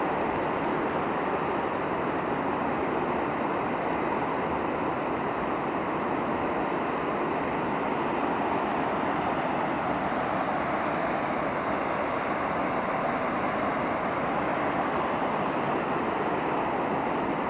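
A steady, even rushing noise that holds at one level, with no distinct events.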